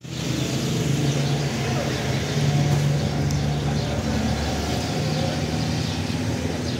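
Street traffic noise with a motor vehicle engine running steadily as a low, even hum.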